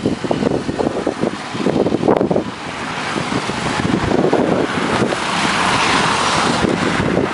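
Wind buffeting the microphone, then road traffic: a passing vehicle's engine and tyre noise swells to its loudest about five to six seconds in.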